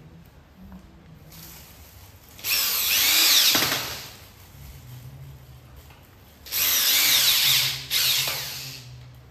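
Electric drill-driver running in two bursts of about one and a half to two seconds each, driving screws through a metal hinge into a wooden door panel; the motor whine shifts in pitch under load, and the second burst stops briefly and starts again.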